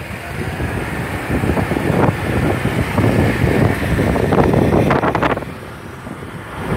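Wind buffeting the microphone of a moving camera, mixed with vehicle engine noise. A motorcycle passes close by about five seconds in.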